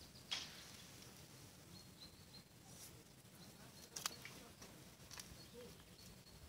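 Near silence: faint outdoor ambience, with two short clicks, one just after the start and one about four seconds in.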